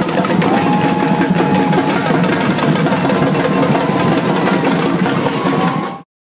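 Samba-style percussion music with drums playing, cutting off suddenly near the end.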